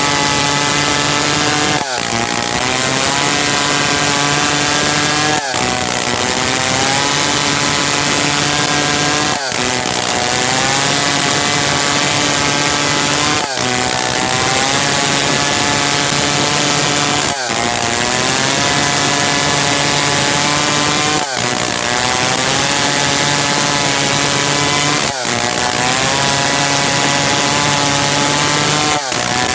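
Stihl 070 two-stroke chainsaw running at high speed while sawing merbau hardwood. About every four seconds the sound dips briefly and the engine pitch climbs back up and steadies.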